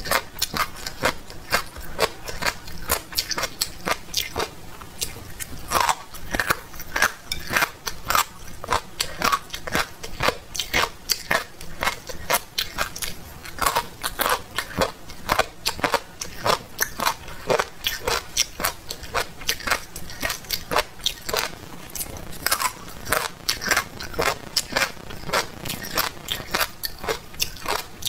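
Close-miked biting and chewing of crunchy spicy chicken triangle-bone cartilage, crisp crunches coming a few times a second.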